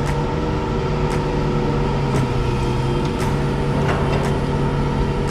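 Lorry engine idling steadily, with a short click about once a second.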